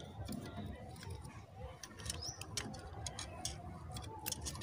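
Faint, irregular clicks and ticks of a tape measure being handled against a metal dish support rod.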